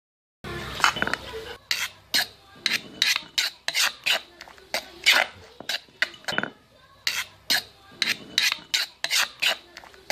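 Granite pestle pounding a wet paste of soaked dried chilies in a granite mortar: short, irregular strokes at about three a second, starting about half a second in. A metal spoon scrapes and clinks against the stone between strokes.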